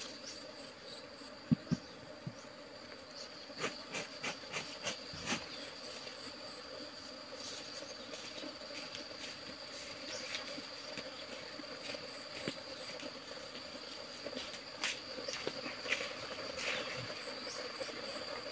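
Honeybees buzzing around an opened wooden hive, a steady hum, over a steady high-pitched insect note, with scattered light knocks and taps.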